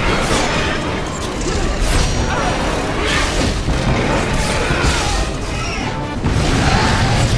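Action-scene soundtrack: music under a dense, loud mix of crashes and booms, with several sharp impacts scattered through it.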